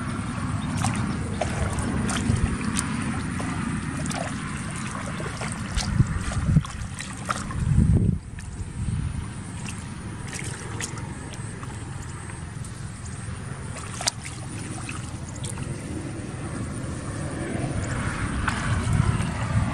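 Hands sloshing and splashing in shallow muddy water while feeling for fish, with scattered small clicks and a few louder splashes about six to eight seconds in. Under it is a steady low rumble of wind on the microphone.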